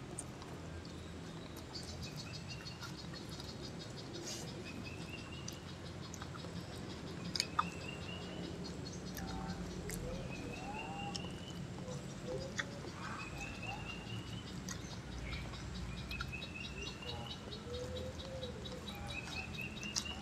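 Garden wildlife ambience: a short rising chirping trill repeated about every two seconds over a fainter, steady, high insect-like trill, with lower arching calls in the second half. A few sharp clicks, the loudest about seven seconds in.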